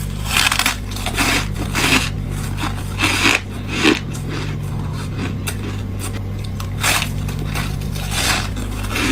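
Freezer frost being bitten, crunching and squeaking between the teeth: several bites in the first four seconds, then two more near the end. A steady low hum runs underneath.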